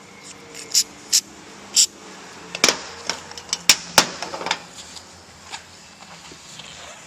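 Hand tools clicking and knocking on metal parts in an irregular series, about a dozen sharp strikes, with the loudest knocks around the middle.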